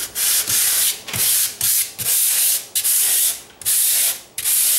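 Drywall joint compound being sanded by hand with sandpaper on a sanding pad. Brisk back-and-forth strokes, about one and a half a second, each a rough hiss with short breaks between.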